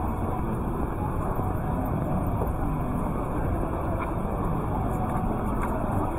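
Steady busy city-street ambience: an even wash of traffic rumble and background noise with no single sound standing out.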